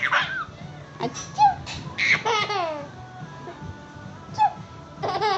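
A baby laughing in repeated bursts, each squeal falling in pitch, with a person's sneeze ('achoo') about a second and a half in.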